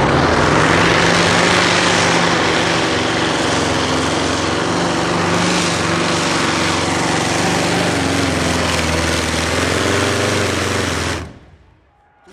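Pratt & Whitney R-4360 28-cylinder air-cooled radial engine in a modified pulling tractor, running hard under load as it pulls the brake sled: a loud, steady drone that holds its pitch. About eleven seconds in, the sound drops away suddenly.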